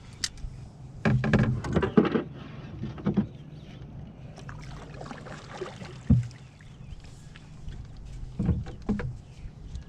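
Knocks and clatter against a canoe hull: a run of knocks about a second in, another around three seconds, a single sharp knock around six seconds and a short clatter near the end, over a steady low rumble.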